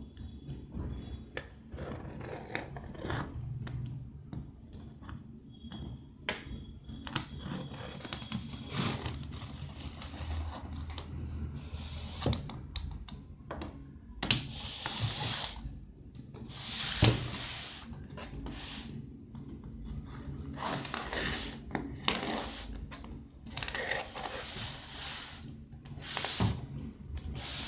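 A cardboard laptop carton being handled and opened by hand: irregular rasping scrapes and tearing of the packaging against the table, with a run of louder tearing bursts about halfway through.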